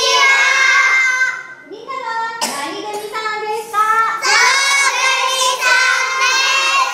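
A group of young kindergarten children singing a song together, with a short break between phrases about two seconds in.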